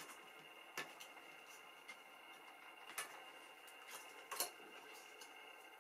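Small clicks and taps of a metal tool and fingers working at the motor pulley and drive belt of a Chinon Sound 8000 Super 8 projector: three sharper clicks spread through the seconds, the loudest late on, with fainter ticks between, over a faint steady high hum.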